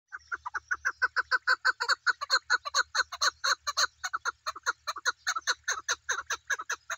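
Chukar partridge calling in a rapid, even series of short 'chuk' notes, about five a second.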